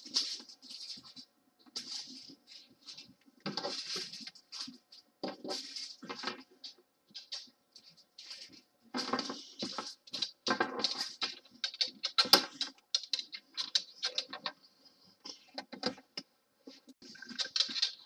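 Small plastic bags of diamond-painting drills rustling and crinkling in irregular handfuls as they are picked up, shuffled and set down, the drills shifting inside them.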